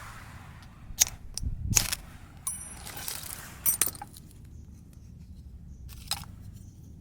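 Metal camp gear being handled: a few sharp clinks and knocks, with a short high metallic ding about two and a half seconds in.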